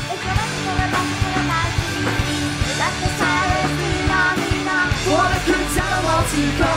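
Live ska-punk band playing loud through a club PA: drums, bass and electric guitar with sung vocals over them.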